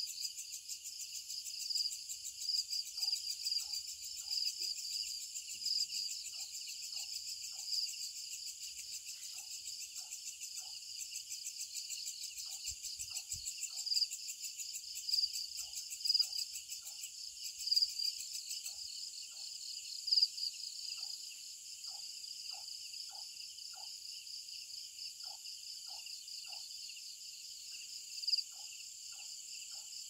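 Night chorus of crickets and other insects: a dense, high, fast-pulsing trill, with faint short calls repeating in small groups underneath.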